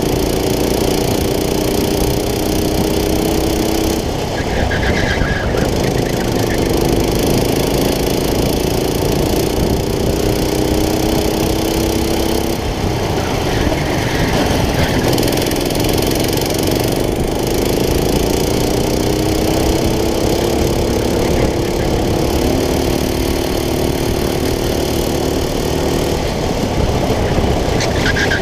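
Go-kart engine heard from the driver's seat during a race, its pitch climbing slowly as the kart accelerates down each straight and dropping back when the driver lifts for a corner, about four times, over a steady rushing noise.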